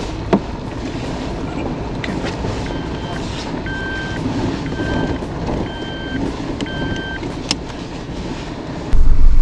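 Steady running noise of a 4x4 on a dirt road. Through the middle an electronic beep sounds five times, about once a second. Near the end a much louder low rumble sets in suddenly.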